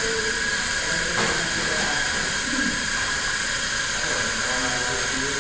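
Steady hissing from a pan of white sauce heating on a portable tabletop gas stove.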